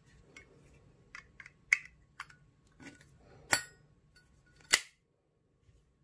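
Zippo lighter lid being flipped and snapped shut on its hinge: a run of small metal clicks, then three sharp clacks with a short metallic ring, the last near the end.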